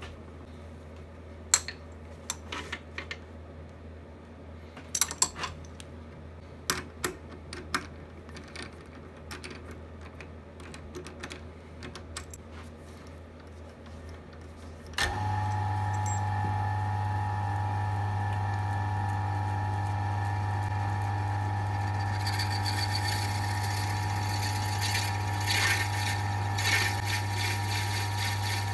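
Clicks and knocks of a square cocobolo pen blank being fitted and clamped in a metal four-jaw lathe chuck. About halfway through, the wood lathe's motor switches on and runs with a steady hum. In the last several seconds a hand-held twist drill bit bores into the end of the spinning blank, adding a hissing, scraping cutting noise.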